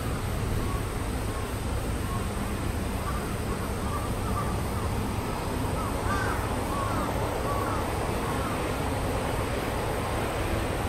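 A bird calling in a run of short, hooked notes, starting about a second in and dying away near the end, over a steady low outdoor rumble.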